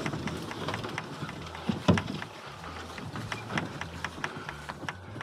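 Wheels of a boat cart loaded with a small boat rolling over dry leaf litter and twigs: a low rolling rumble with crunching and irregular clicks and rattles, and a sharp knock about two seconds in.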